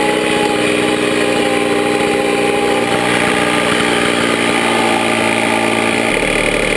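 Fan-cooled 70 cc two-stroke single engine of a Puch MS50 moped dropping back to a steady idle as the moped rolls to a stop, with a deeper hum joining about six seconds in. The engine is running hot, and that can be heard in its running.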